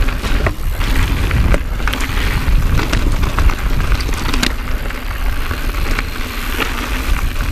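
Wind rumbling on the camera microphone over the rattle and crunch of an Intense Carbine 29er mountain bike rolling over rocky singletrack, with several sharp clicks and knocks from the bike and trail.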